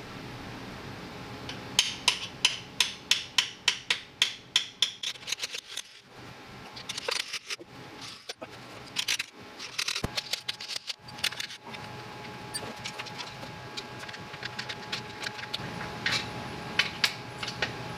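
A hammer rapidly striking a chisel held against the old transmission mount bushing, about four sharp blows a second for several seconds, to drive the worn bushing out of its mount after a relief cut. Irregular knocks and metal clinks follow as it works loose, with lighter clicks near the end.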